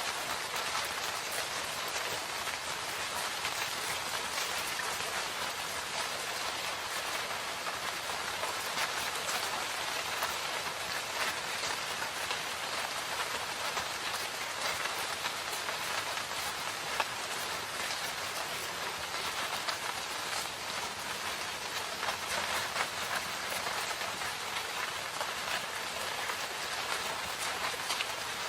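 Steady rain falling in a forest: an even, dense hiss of rain with countless small drop ticks through it.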